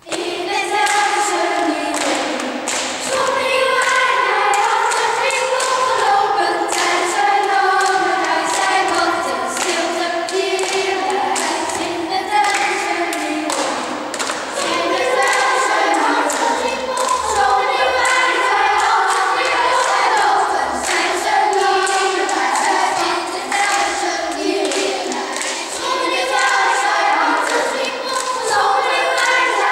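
Children's choir singing a lively song, with the singers clapping their hands along with it.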